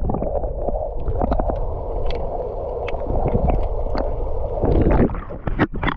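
Steady rushing, sloshing water with a low wind rumble and a few small clicks; it eases off about five seconds in.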